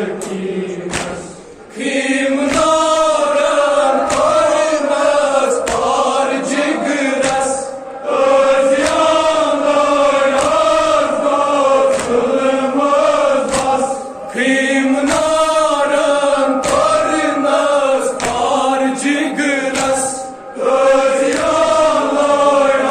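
A group of men chanting a Kashmiri noha, a Muharram lament, together in a repeating melody. The lines break off for a brief pause about every six seconds, and a regular beat of sharp strikes, about one a second, runs beneath the singing.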